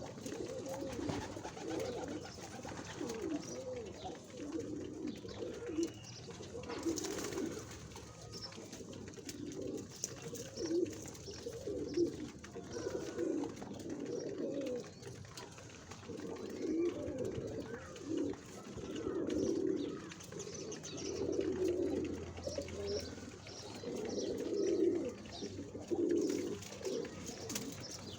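Pigeons cooing, low repeated coos overlapping one another.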